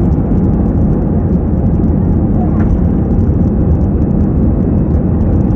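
Inside the cabin of an easyJet Airbus A320-family airliner climbing out after takeoff: the steady, loud rush of the jet engines and airflow, deepest in the low range, holding an even level.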